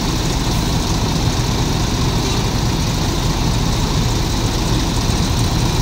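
Large diesel bus engine idling close by, a steady low drone with no revving.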